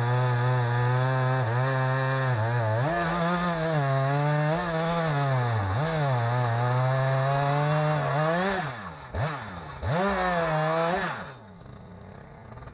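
Chainsaw engine under load, ripping lengthwise through a log in a chainsaw mill, its pitch sagging and recovering as the cut bogs and frees. Near the end the revs drop and rise a few times, then the engine falls away to a low level about eleven seconds in, as the cut finishes.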